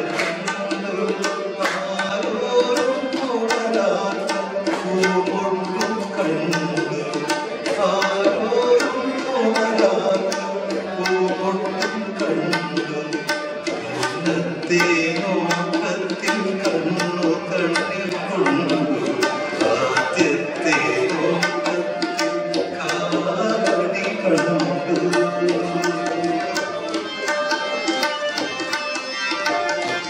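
Live Indian light music: a harmonium playing sustained melodic tones, with hand-percussion strokes running through it.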